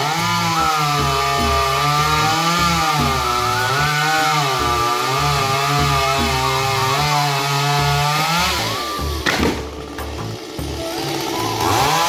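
Two-stroke chainsaw running hard while cutting into a jackfruit tree, its pitch wavering up and down as it works through the wood. About nine seconds in, the revs fall away with a brief sharp crack, then rise again near the end.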